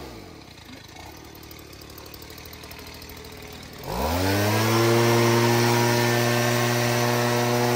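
Electric blender motor switched off, its hum winding down, then switched back on about four seconds in, spinning up quickly to a steady hum.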